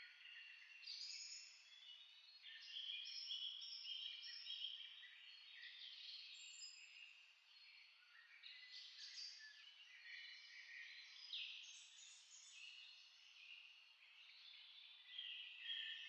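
Faint chorus of small birds chirping and twittering, many short high notes overlapping throughout.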